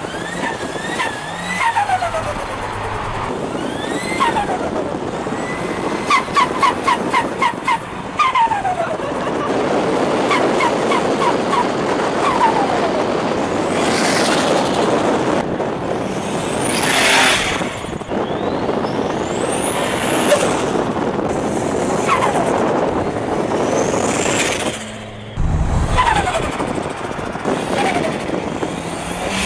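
Holden VL Commodore Turbo's turbocharged straight-six revving up and down repeatedly, with a high turbo whistle rising in pitch several times and rapid fluttering chatter from the turbo when the throttle is lifted.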